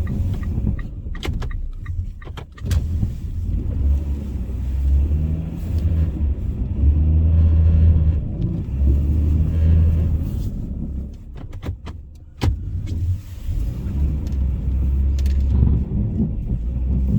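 Car engine revving in repeated surges as the car, stuck in a snow pile, is rocked between reverse and forward gear to break free. A few sharp clicks come through near the start and again about two-thirds of the way in.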